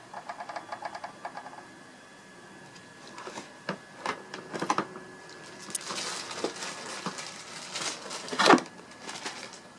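A small power tool clattering in a short burst of rapid clicks, then scattered clicks and knocks of the tool being handled, with one sharp knock near the end.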